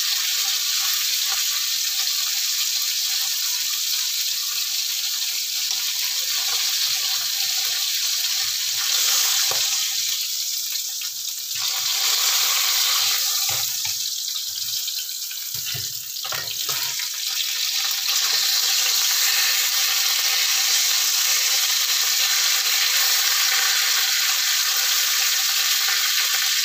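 Red snapper heads deep-frying in hot oil in a wok: a steady sizzle. In the middle it eases briefly a couple of times, with a few knocks and scrapes of the spatula as the pieces are lifted and turned.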